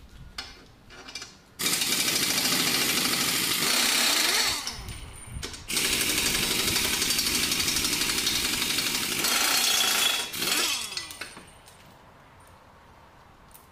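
Pneumatic air drill running at full speed in two long bursts, each winding down with a falling whine as it stops. It is being used at the blade bolt of an upturned push lawnmower to free the blade.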